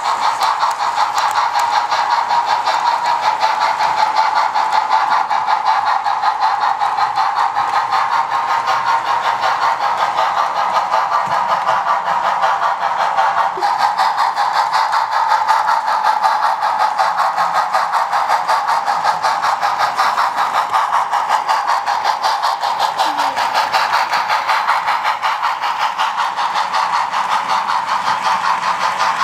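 Model train running on the layout: a Bachmann Spectrum 4-6-0 ten-wheeler steam locomotive with factory Tsunami sound pulling freight cars, giving a steady running noise with fast, even ticking.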